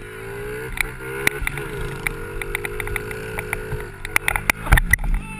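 Honda 50cc mini dirt bike's single-cylinder four-stroke engine running at steady revs, with sharp clicks and knocks from the bike over rough ground. The engine note dips briefly about four seconds in, followed by a burst of loud knocks and low thumps.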